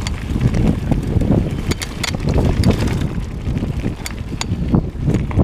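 Mountain bike rolling down a loose-stone singletrack, heard from a rider-mounted action camera: wind rushes over the microphone in a continuous, surging low rumble. Sharp clicks and knocks from the bike and its tyres on the stones come through several times.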